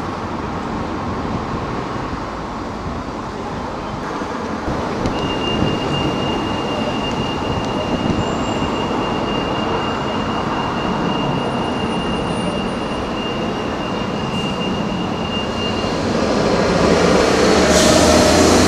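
Metrolink tram running on its rails over a steady rumble of city traffic, its wheels squealing in one long steady high tone for about ten seconds. The rumble grows louder near the end.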